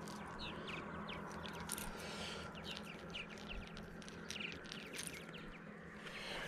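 Small birds chirping in the background, with faint clicks and rustles as a small bass is unhooked from a treble-hooked lure by hand.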